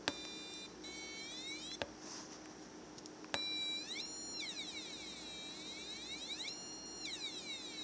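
555 timer astable oscillator sounding through a small speaker: a high-pitched electronic tone that sweeps up and down in pitch several times as the potentiometer is turned. A couple of sharp clicks break in along the way.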